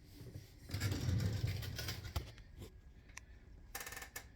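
Handling noise: a rustling scrape about a second in, then several separate clicks and a short rapid rattle of clicks near the end.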